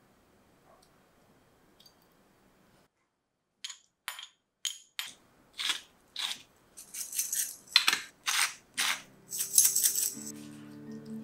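Hand-twisted spice grinder grinding over a bowl of minced pork: a run of short crunchy grinding bursts, about two a second, that grow denser near the end. Background music comes in near the end.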